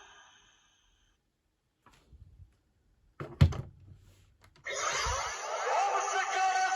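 Soft handling knocks and a sharp plastic click on the Ultra Replica Orb Ring toy. About four and a half seconds in, the toy's speaker starts playing a loud electronic sound effect that runs on.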